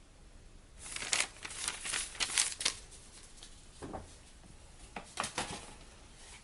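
Paper crinkling and rustling as it is handled: a run of crackling for about two seconds starting about a second in, then two shorter bursts later on.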